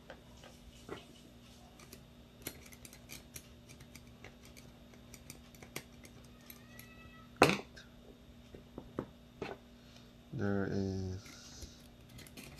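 Airsoft Ver3 gearbox parts and a screwdriver being handled: light clicks and taps of metal and plastic, with one sharper click about seven seconds in. A short low hum follows near the end.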